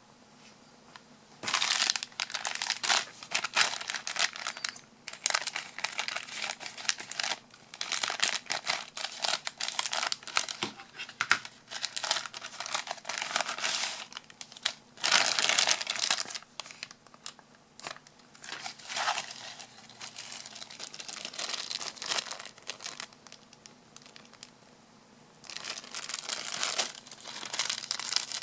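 Plastic packaging crinkling in irregular bursts as hands open a grey plastic mailer bag, then work a small clear plastic bag around a lavalier microphone. It starts about a second and a half in, with a short lull near the end before the crinkling resumes.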